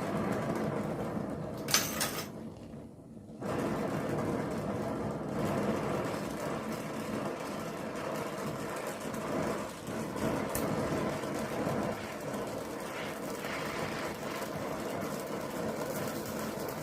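Welding on galvanised steel: a steady run of welding noise that breaks off briefly about two seconds in and then carries on. The zinc coating is burning off and giving off fumes.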